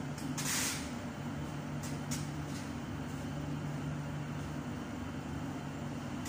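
Metropolitan line S Stock Tube train standing at the platform with its doors closed: a steady low electrical hum. A short hiss of air comes about half a second in, and there is a faint click near two seconds.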